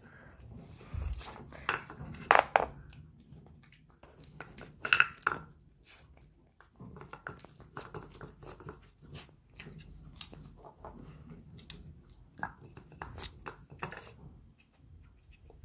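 A dog working a wooden treat-puzzle board: wooden cylinders knocking and scraping against the board as it noses them out of their holes, with chewing and crunching of small treats in between. The loudest knocks come about two seconds in and again about five seconds in.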